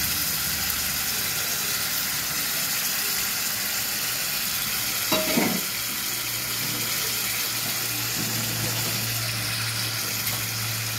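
Spicy fish curry gravy simmering and sizzling in a non-stick kadai on a gas burner: a steady hiss, with a brief louder knock about five seconds in as a second fried pomfret piece goes into the pan.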